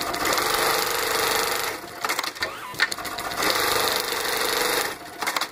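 Brother BAS342F programmable pattern sewing machine sewing bartacks at speed, in runs of a second or two. The runs are broken twice by short pauses with sharp clicks as the foot lifts, the thread is clamped and the frame jumps to the next bartack.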